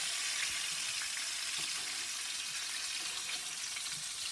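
Chicken cutlets frying in a pan of hot oil: a steady sizzle.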